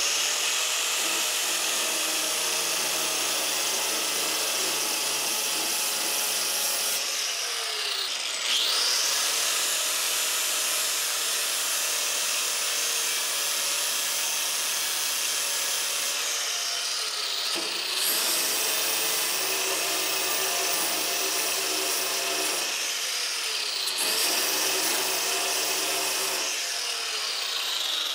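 Angle grinder grinding along the edge of a steel patch panel in a jeep's rear wheel well, a continuous loud grinding with a high motor whine. The whine drops in pitch and recovers three times as the disc is pressed into the metal, and the sound stops abruptly at the end.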